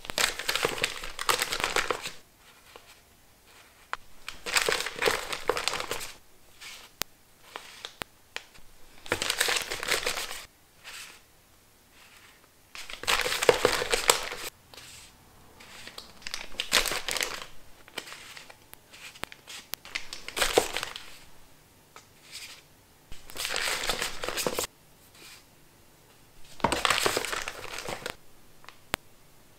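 Facial sheet mask sachets crinkling as a hand flips and shuffles through a tightly packed stack of them, in about eight short bursts of rustling a few seconds apart.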